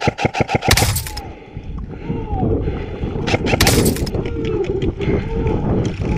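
An airsoft gun fires a rapid full-auto burst of sharp clicks, about a dozen a second, lasting under a second. Then come two harsh bursts of noise about a second in and near the middle, over steady rumbling movement and wind noise on a head-mounted camera's microphone.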